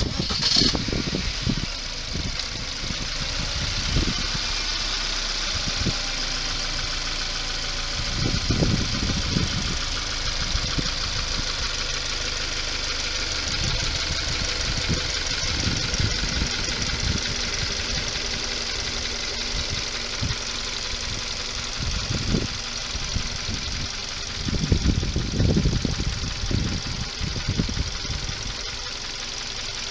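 Subaru FB20 2.0-litre flat-four engine idling steadily, heard up close in the open engine bay. Irregular bursts of low rumble come in about a third of the way through and again near the end.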